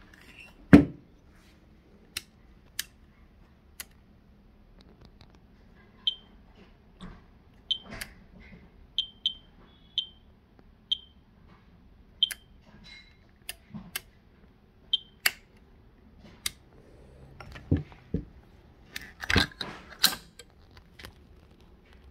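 Radiation meter giving about nine short high beeps at irregular, random-seeming intervals, the way a counter signals detected counts. Sharp clicks come in between, with a loud knock about a second in and several more near the end.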